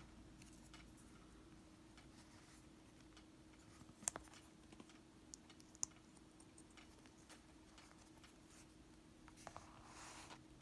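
Faint clicks and taps from small plastic snap fasteners and fingertips being handled on a cutting mat, with a sharper click about four seconds in and another near six seconds. A soft rustle of the latex sheet being rubbed near the end.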